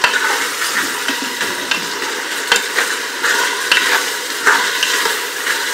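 Mutton pieces sizzling in hot oil with onions in a pressure cooker pot, stirred with a wooden spatula. Steady frying hiss with repeated short scrapes and knocks of the spatula against the pot.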